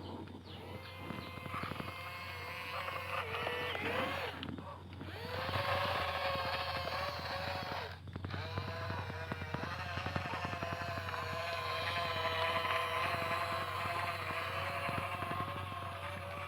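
Small electric motor and gearbox of an RC construction toy whining under load, its pitch rising and falling as the throttle changes, with brief breaks about four and eight seconds in.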